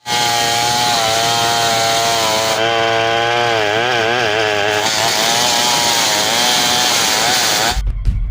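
Large two-stroke chainsaw cutting into a big hardwood log at full throttle, its engine note wavering and dipping under the load in the middle. It cuts off abruptly near the end as music with a beat comes in.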